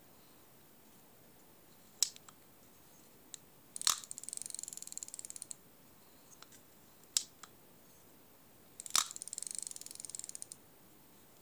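Edgar Sealey Flocast fixed-spool reel, a badged Young's Ambidex, worked by hand: its bail arm and handle give a light click, then a sharp snap followed by rapid even ratchet ticking for about a second and a half as the handle is wound. The sequence happens twice.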